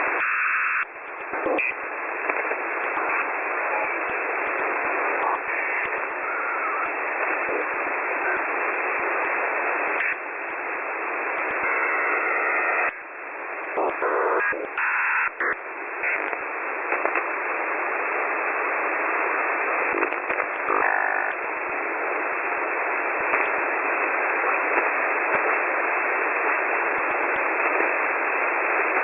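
Shortwave radio receiver hissing with static on an empty channel, the sound squeezed into a narrow telephone-like band. Scattered crackles run through it, and it drops out briefly a few times, about a second in and again near the middle.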